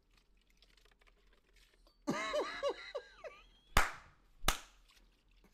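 A man bursts out laughing about two seconds in, a quick high-pitched run of laughs, then claps his hands twice, two sharp loud claps.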